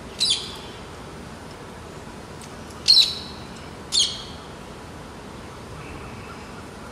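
Rose-ringed parakeet giving three short, high-pitched squawks, a couple of seconds apart, the middle one the loudest.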